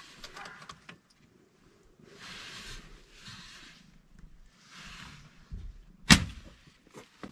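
A single sharp gunshot about six seconds in, fired at a cornered porcupine at close range. Before it come three short, soft hissing sounds.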